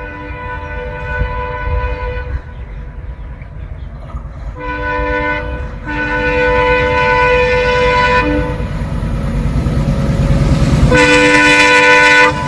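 Indian Railways WDM3D ALCO diesel locomotive approaching at speed, sounding its multi-tone air horn in several blasts: one held through the first two seconds, a short one and a longer one between about five and eight seconds in, and another near the end. Under the horn, the engine's low chugging rumble grows steadily louder as the train nears.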